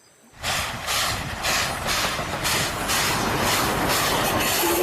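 Steam train sound effect: a locomotive chugging with a regular beat about twice a second, with a whistle tone starting right at the end.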